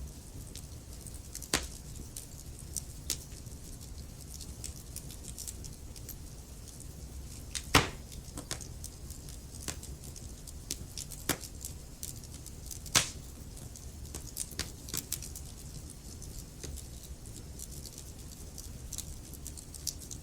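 Wood fire burning in a fireplace: a steady low rumble of flames under scattered sharp crackles and pops from the burning logs, with three louder pops about a second and a half in, near the middle and about two-thirds of the way through.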